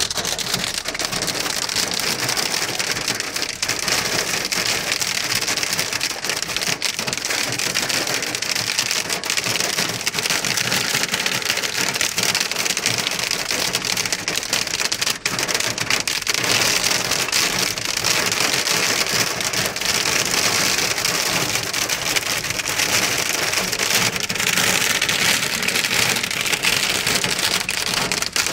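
Hail and heavy rain pelting a car's roof and windshield, heard from inside the cabin as a dense, steady patter of countless small hits.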